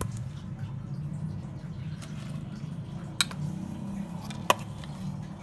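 Ground chironji being tipped and scraped from a steel bowl into a kadhai, with two sharp metal taps of the bowl on the pan, about three seconds in and again about four and a half seconds in, the second the louder, over a steady low hum.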